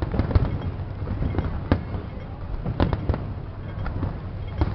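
Aerial fireworks shells bursting: an irregular string of sharp bangs, several a second at times, over a continuous low rumble.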